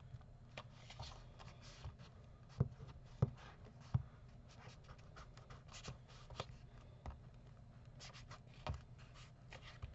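A nearly used-up glue stick rubbed across paper in short scraping strokes, with a few soft knocks as the stick or hands tap down on the paper and table.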